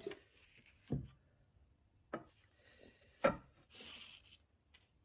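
Metal mower bottom blades being handled and laid against each other: three knocks about a second apart, the third the loudest, then a short scrape.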